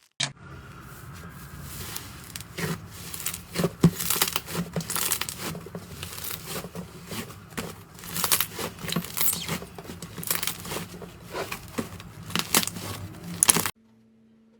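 Slime being handled and squeezed, with dense, irregular crackling, popping and tearing sounds that cut off suddenly near the end.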